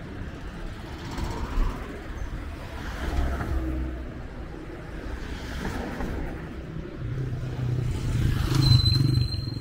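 Street traffic rumbling, with a small motorcycle engine growing louder as it passes close by near the end.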